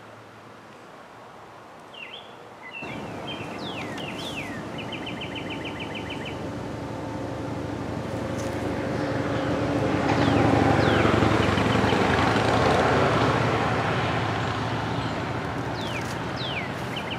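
A car driving past, growing louder to a peak about ten seconds in and then fading away. Songbirds chirp over it, one giving a quick trill of repeated notes about four seconds in.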